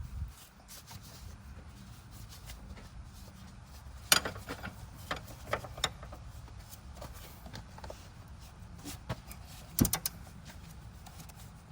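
Hand tools knocking and clinking on metal parts in a car's engine bay while a part is being taken off, a few separate sharp knocks over a low background rumble.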